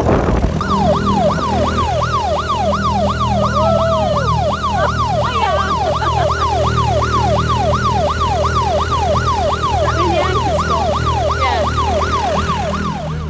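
A small outboard motor runs steadily under a loud electronic siren-like wail that sweeps up and down about twice a second, starting just after the beginning and stopping near the end.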